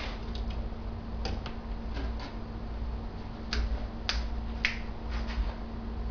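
Scattered light clicks and taps of objects being handled on a work table, irregular and about ten in all, over a faint steady low hum.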